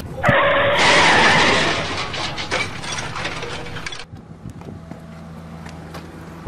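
A car's tyres screeching under hard braking, loud for about four seconds and cutting off abruptly, then a quieter low steady hum of the car's engine running.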